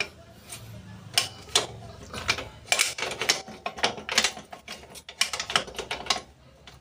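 Steel wheel spokes clicking and clattering against each other and the drum hub as they are worked by hand into the hub flange while lacing a spoked wheel. Sharp irregular metallic clicks, several a second.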